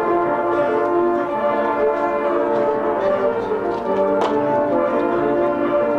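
Marching band brass playing sustained, full chords together, with one sharp percussion stroke about four seconds in.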